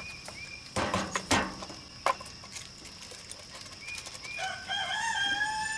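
A rooster crowing: one long drawn-out call that starts about four and a half seconds in. Before it, a few sharp clicks and knocks at about one and two seconds in.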